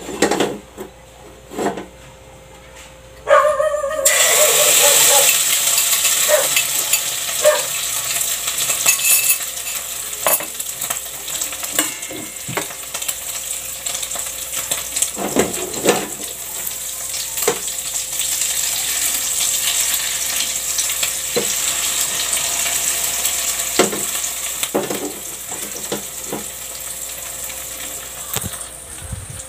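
Egg and fresh alamang (tiny shrimp) omelette batter hitting hot oil in a pan, starting to sizzle suddenly a little over three seconds in and then frying steadily. Occasional sharp knocks of a utensil against the pan or bowl.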